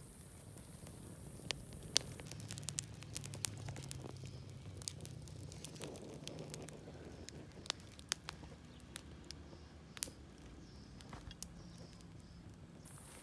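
Open wood fire in a primitive pottery kiln crackling, with irregular sharp pops over a low rumble.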